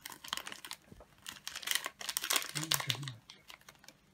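Paper sachets of powdered vanilla crinkling as they are opened and shaken empty, a run of quick crackles that dies away near the end.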